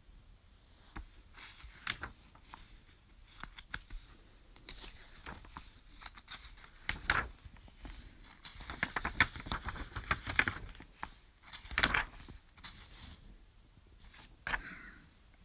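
Glossy book pages being turned one after another, with crisp crackles and swishes of the paper, the loudest turns about 7, 12 and 14.5 seconds in.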